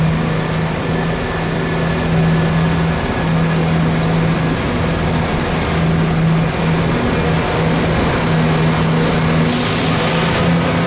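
Diesel train engine running with a steady low hum, and a short burst of hiss near the end.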